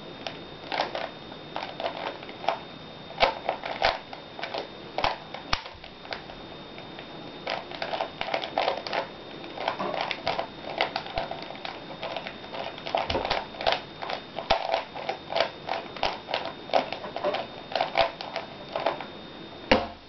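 A 3x3 Rubik's cube being turned by hand: its plastic layers click and clatter in quick runs of moves, with short pauses between runs.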